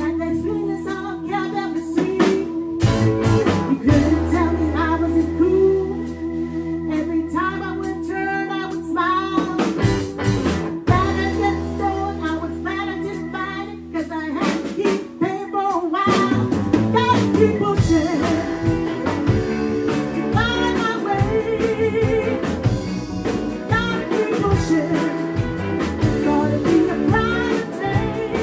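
Live electric blues band: a woman singing over electric guitars, electric bass and drum kit. The band holds long sustained chords at first, then settles into a steady driving groove about halfway through.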